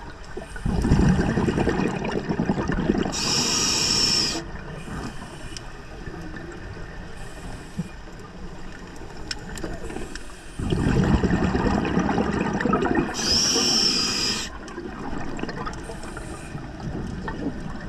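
Underwater scuba breathing through a regulator: two breaths about ten seconds apart, each a loud rush of exhaled bubbles with a high regulator hiss and faint whistle near its end.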